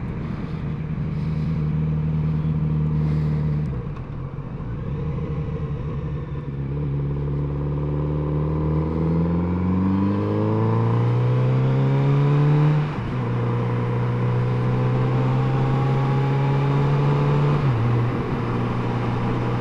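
Motorcycle engine heard from the rider's helmet with wind and road noise. Its note holds steady, eases off about four seconds in, then climbs in pitch as the bike accelerates, and drops suddenly at a gear change about thirteen seconds in before settling to a steady cruise.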